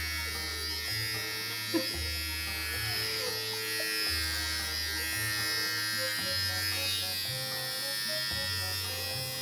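Cordless electric pet clipper buzzing steadily as it trims a Maltese's head fur, with one sharp click a little under two seconds in.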